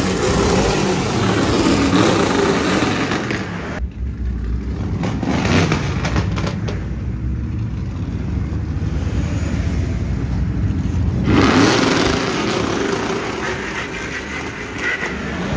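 Pickup truck engine and exhaust running while driving slowly, a steady low rumble with some revving. The sound changes abruptly about four seconds in and again at about eleven seconds.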